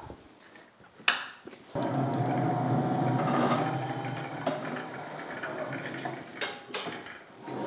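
Battery-powered Caterpillar walk-behind pallet stacker driving across a concrete floor on its newly fitted drive wheel: a steady electric motor hum with a faint whine, starting about two seconds in, and a couple of sharp clunks near the end.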